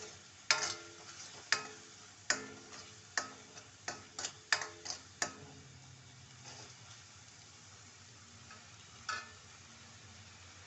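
A spoon stirring thick masala gravy in a metal pan, clacking against the pan with a short ring about once or twice a second for the first five seconds, then once more near the end. A faint sizzle of the cooking gravy runs beneath.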